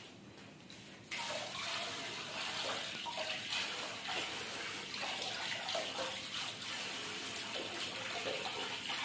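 Tap water running into a steel bowl in a sink while pieces of giloy vine are rinsed by hand. The tap comes on suddenly about a second in and then runs steadily.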